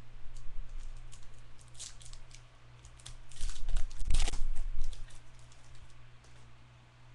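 Baseball trading cards and their pack wrappers being handled: a run of rustles and clicks, loudest about three to five seconds in, over a steady low hum.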